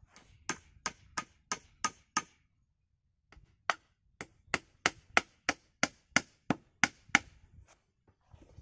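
Small hatchet striking wood in quick, sharp blows, about three a second: a run of six, a short pause, then a longer run of about a dozen.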